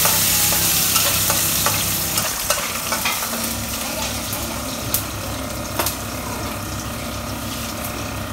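Chilies sizzling in a hot pan, the sizzle loudest at first and easing off over the first few seconds. A few sharp taps and scrapes come through as it is stirred.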